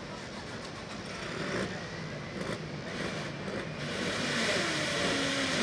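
Turbocharged diesel engine of a Pro Farm pulling tractor running at the start line, getting louder and brighter about four seconds in as the throttle comes up, with a faint turbo whine.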